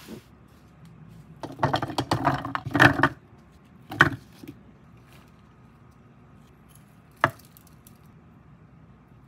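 Apple cubes dropped by hand into the plastic bowl of a small food chopper: a short burst of clattering knocks, a sharp knock about four seconds in, and a single click near the end.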